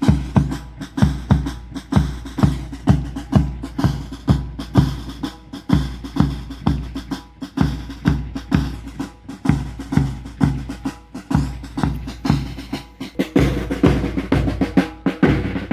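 Marching drum cadence: a bass drum keeping a steady beat about twice a second, with snare drum rolls and strokes between the beats.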